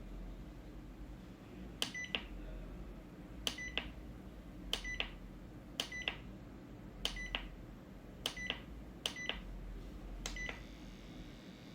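About eight button presses, roughly one a second, each a sharp click with a short high electronic beep and a softer click just after, typical of pressing through a small appliance's control buttons.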